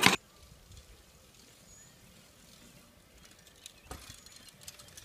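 A bicycle rolling over a dirt jump, with faint clicks and a light rustle starting about four seconds in, after a short loud sound at the very start and a quiet stretch.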